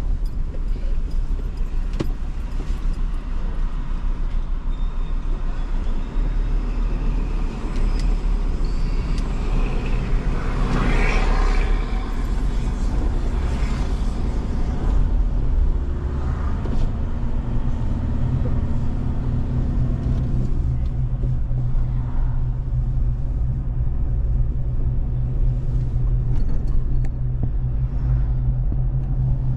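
A moving vehicle's engine and road noise, a steady low rumble. About ten seconds in it swells briefly into a louder rushing noise, and later an even engine drone comes through.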